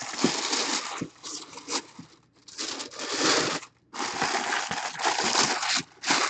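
Tissue paper crinkling and rustling as hands pull it open, in three long bursts and a short one at the end.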